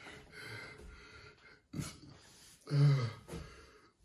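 A man breathing audibly and letting out a short, loud voiced exclamation a little under three seconds in, his reaction to the burn of a very hot chicken wing.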